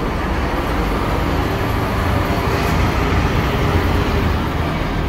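A bus's diesel engine running, a low rumble that swells a little in the middle and eases toward the end, over steady traffic noise.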